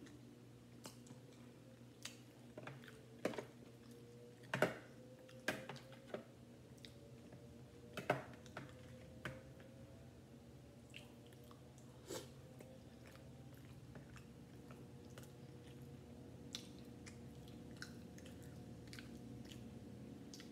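Close-miked chewing of a mouthful of seafood boil, with sharp wet mouth clicks and smacks, loudest and most frequent between about three and nine seconds in. A faint steady hum runs underneath.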